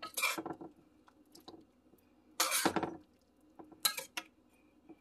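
Metal spoon scraping and clinking against a metal cooking pot while stirring soup, in three short bursts, the loudest about two and a half seconds in.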